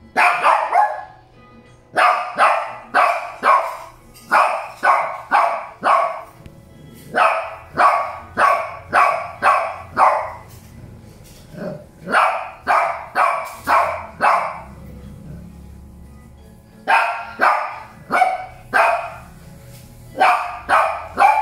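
Shih Tzu barking repeatedly, in runs of several barks about two a second, with short pauses between the runs.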